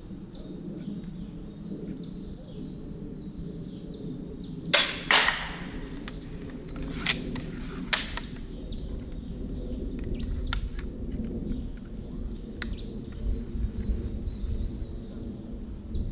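EK Archery Cobra RX Adder repeating crossbow firing an aluminium bolt with one sharp snap about five seconds in. A few seconds later come a couple of sharp clicks as it is re-cocked, then fainter clicks. Birds chirp throughout.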